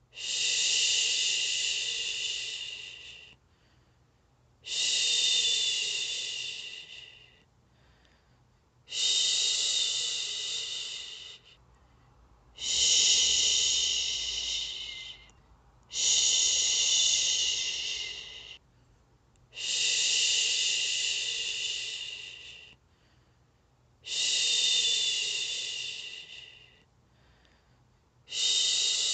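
A woman shushing, 'shhhh', in long drawn-out hisses about three seconds each, repeated about every four seconds; each starts strong and fades before a short pause. A steady soothing shush of the kind used to settle a baby to sleep.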